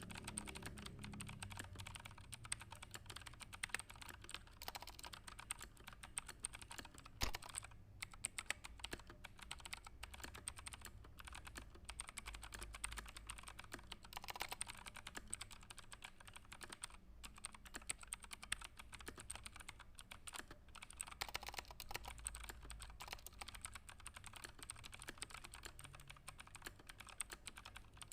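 Fast, continuous typing on a computer keyboard: a dense stream of key clicks, broken by a few brief pauses.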